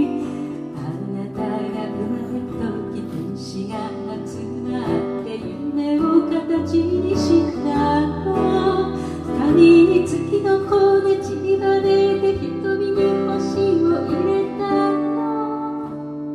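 Background music, a song led by plucked acoustic guitar.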